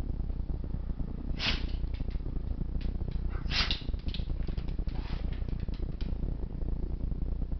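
Black Labrador sneezing: two sharp sneezes about two seconds apart, followed by several fainter snorts.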